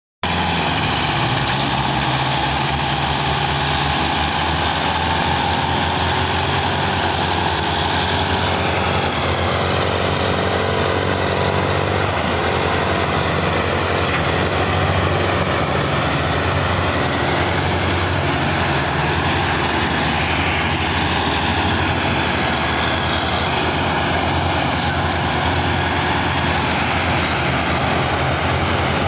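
Diesel engines of two Belarus tractors running steadily under heavy load as they pull and push an overloaded sugarcane trolley.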